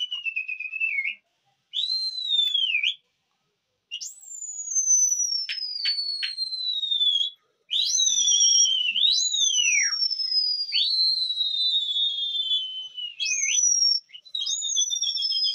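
A string of shrill whistles, the calls pigeon flyers make to work their flock overhead. Most are long notes sliding down from high to lower pitch, some warbled and some rising sharply at the end, with short silent breaks between them.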